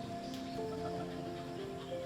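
Background music of held notes that shift in pitch every half second or so, with a few faint ticks behind it.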